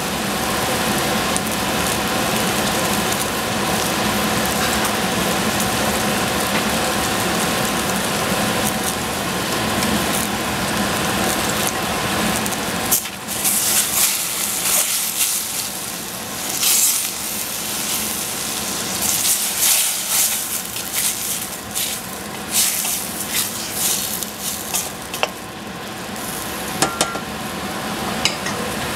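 Oyster mushrooms and egg sizzling steadily in a stainless steel saucepan. About halfway through, a spatula starts stirring, scraping and clacking against the pan repeatedly for several seconds.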